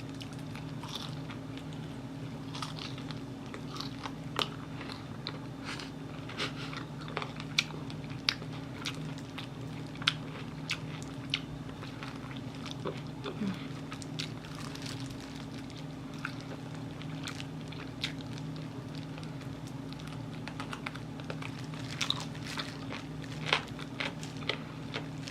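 Close chewing and biting on fried chicken, with irregular sharp crunches of chicken cartilage. A steady low hum runs underneath.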